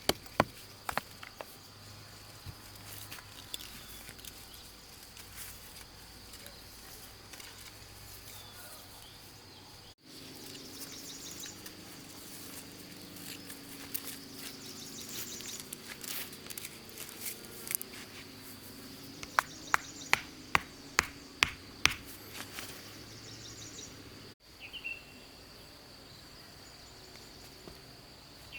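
Insects droning steadily in a high, even band, with scattered sharp knocks. About two-thirds of the way through comes a run of about eight evenly spaced strikes, roughly three a second.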